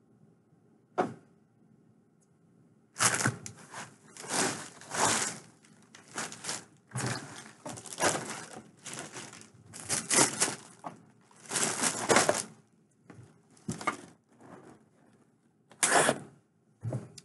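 Packaging crinkling and rustling in irregular bursts as items are handled, densest from about three seconds in for some ten seconds, with a few scattered rustles after.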